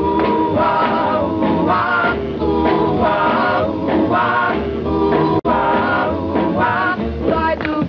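1950s doo-wop vocal group singing a rock and roll number with band backing: a boy lead voice over group harmonies and a bass line. There is one very short dropout in the sound about five and a half seconds in.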